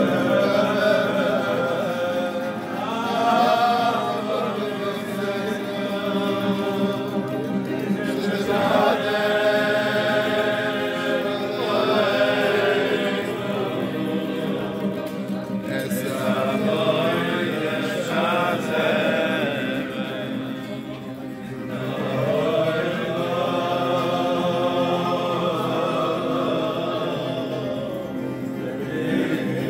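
Group of men singing a Jewish song together in chorus, over steady sustained instrumental accompaniment.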